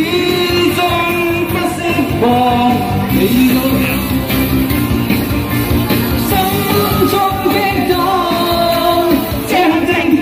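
A Cantopop ballad playing at full volume: a sustained melody over a steady backing track, within a stretch between sung lines of the song.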